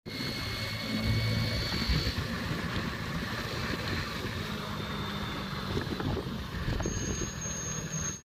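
Motorbike riding along an open road: a steady low engine hum under road and wind noise, heard from on the bike.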